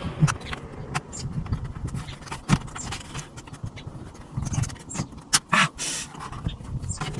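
Irregular clicks and knocks of hard plastic and small metal parts as dashboard trim pieces and their fasteners are worked loose by hand, with a few sharper snaps around the middle and past halfway.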